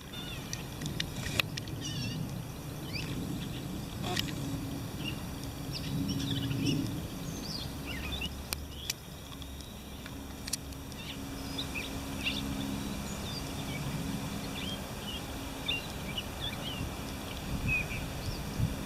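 Birds chirping in short, scattered calls over a low, steady hum and rumble.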